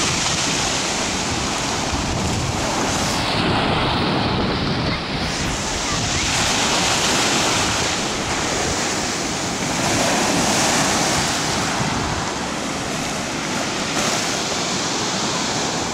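Rough Black Sea surf breaking on the beach: a continuous rush of waves that swells and eases every few seconds, with wind on the microphone.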